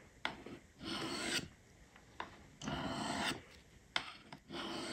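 Knife edge drawn lightly along the fine white ceramic stones of a Spyderco Sharpmaker: three slow scraping strokes about two seconds apart, each with a light tick just before it. These are final polishing passes on a convex edge at roughly 1000 grit.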